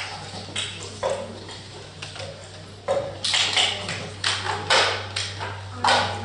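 Room noise in an audience hall between performances: scattered short knocks, taps and rustles. A low steady hum comes in about a second in.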